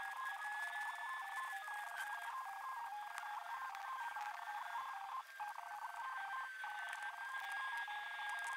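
Thin, tinny electronic tones: a steady high whine with a lower note that steps back and forth about twice a second. There is no engine or road rumble.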